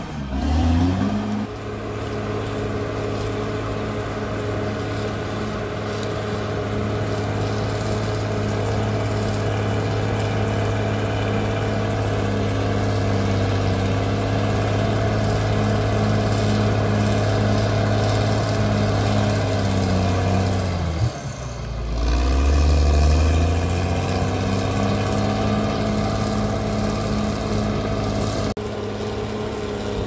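Caterpillar D6R crawler bulldozer's diesel engine running steadily as the dozer works, a low even drone. About two-thirds of the way through, the engine note sags and then climbs back up, briefly louder.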